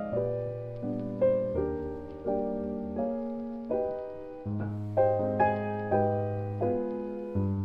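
Gentle background piano music: single notes and chords struck one after another, each dying away slowly.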